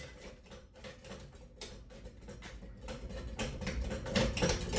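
Faint, scattered light clicks and rattles of small broken ceiling-fan parts being handled.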